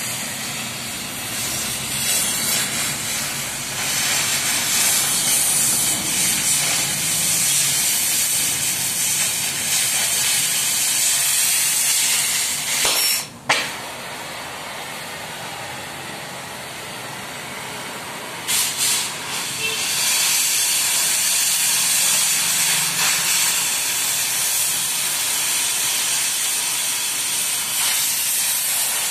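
Gas cutting torch hissing steadily as its jet cuts through thick steel plate. The hiss breaks off briefly about halfway through with one sharp pop, runs quieter for a few seconds, then comes back at full strength.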